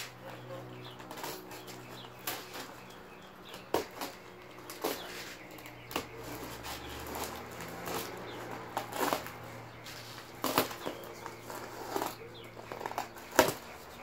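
Box cutter slitting the plastic packing tape wrapped around a cardboard shipping box, with irregular crackles and scrapes of tape and plastic. Near the end come louder rips as the cardboard flaps are pulled open.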